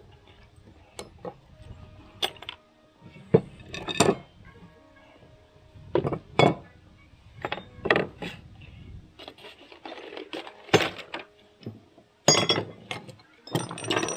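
Small steel engine parts clinking and knocking as they are handled and set down during teardown of a hit-and-miss engine's governor and trip rod. The clinks come irregularly, with the loudest clusters about four seconds in, about eleven seconds in, and near the end.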